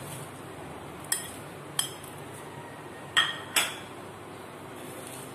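Metal spoon clinking against a plate and a dry griddle pan as whole spices are scraped off onto it: four short clinks, two around a second or two in and two close together past three seconds, over a steady faint hiss.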